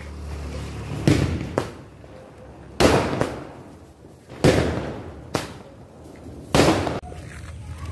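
Fireworks going off: four loud bangs about one and a half to two seconds apart, each trailing off in a short echo, with a few smaller pops between them, from small aerial shots bursting over a sparking ground fountain.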